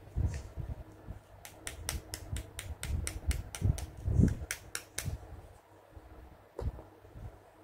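Hands handling small plastic doll accessories and their packaging: a quick run of sharp plastic clicks, about five a second, lasting a few seconds, over soft handling thumps.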